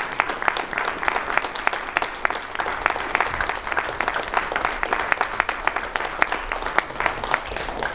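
An audience applauding, with many hands clapping in a dense, steady patter that begins to thin out near the end.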